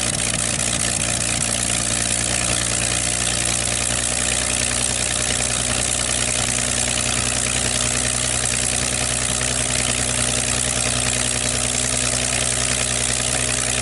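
Piston engine of a WW2 Yak-3 fighter running steadily at an even, unchanging speed.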